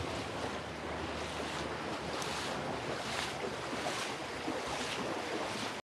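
Creek water rushing and breaking around wooden pilings, a steady wash with faint swishes now and then.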